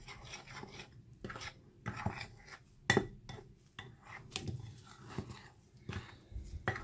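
Metal utensil stirring a dry, crumbly flour mixture in a ceramic bowl, scraping and clinking against the bowl in irregular strokes, the sharpest clink about three seconds in.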